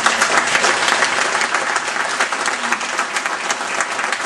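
A seated audience applauding, many hands clapping steadily throughout.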